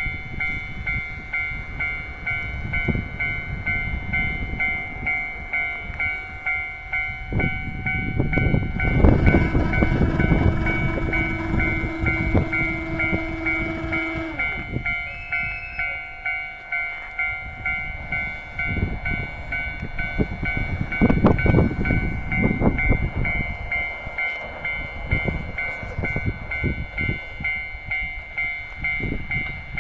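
Japanese level-crossing alarm ringing in an even, repeating rhythm while a KiHa 54 diesel railcar runs over the crossing. About eight seconds in the railcar's rumble rises to its loudest, with a held low tone that drops in pitch as it goes by. Another burst of wheel clatter comes about twenty-one seconds in.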